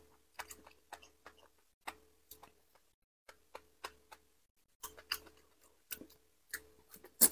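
Close-miked chewing: faint, irregular wet mouth clicks, about two a second, as a mouthful of food is chewed.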